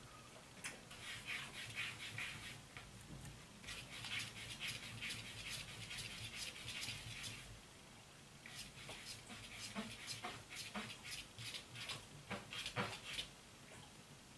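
A cat lapping water from a bowl: runs of quick, small wet clicks lasting a few seconds each, with short pauses between.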